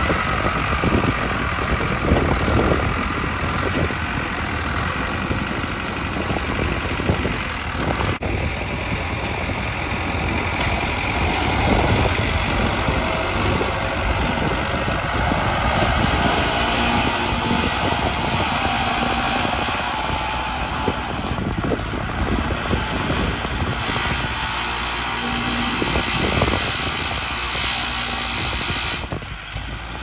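New Holland TT75 tractor's diesel engine running steadily under load, pulling a three-disc plough through dry soil.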